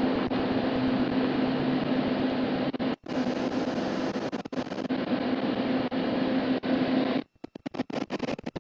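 Steady rushing noise with a steady low hum. It breaks off abruptly about three seconds in, then drops to near silence about seven seconds in, with scattered clicks and crackles.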